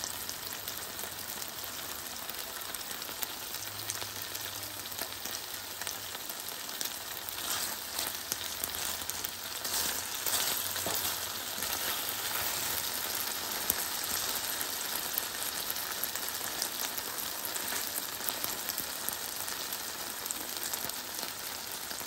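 Chicken tocino pieces frying in vegetable oil in a pan: a steady sizzle, with now and then a wooden spatula stirring them.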